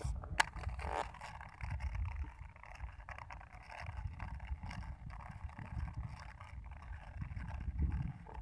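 Wind buffeting the microphone in an uneven, gusty rumble, with water lapping against a small boat's hull and one sharp click about half a second in.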